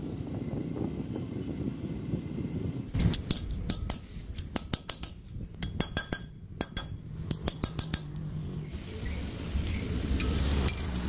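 A low steady rumble for about three seconds, then a run of sharp, irregular metallic clinks and taps from small steel parts being handled and knocked together on a workbench.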